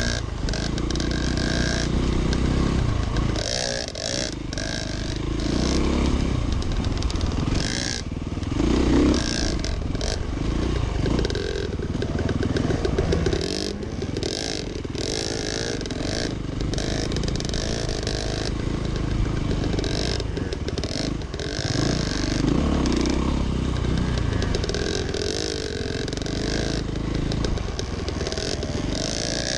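Dirt bike engine heard close up from the bike itself, revving up and down again and again while riding a rough, twisting woods trail, with knocks and clatter from the bike over the bumps.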